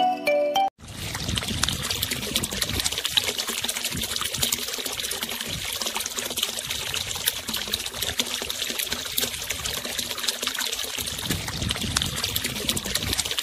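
Steady trickle of water pouring from a small homemade pump's plastic tube and splashing onto wet soil, starting about a second in after a few short notes of mallet music.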